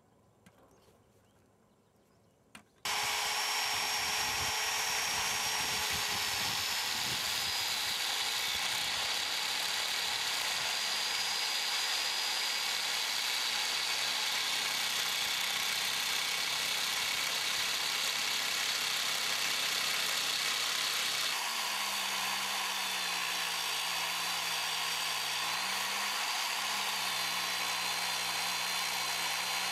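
Electric motor and blade of a curb-grooving machine cutting a groove into a concrete landscape curb: near silence at first, then the machine comes in abruptly about three seconds in and runs steadily with a high whine over a grinding hiss. About twenty seconds later the sound shifts and a lower hum joins it.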